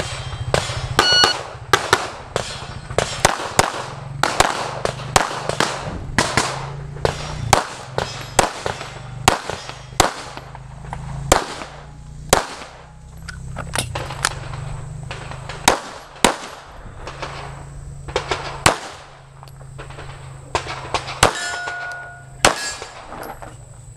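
Handgun fired rapidly in a USPSA Production course of fire: dozens of shots in quick strings, with short pauses between strings, a few of them followed by a brief ringing tone.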